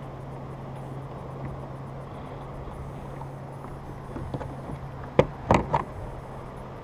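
Water and wind noise around a fishing kayak, with a faint steady low hum through the first few seconds. A little past five seconds in come three sharp knocks in quick succession.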